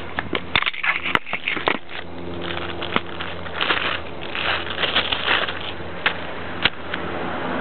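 Handheld camera knocking and scraping as it is set down on concrete, a cluster of sharp clicks about a second in, followed by bursts of crackly rustling and two more sharp clicks near the end.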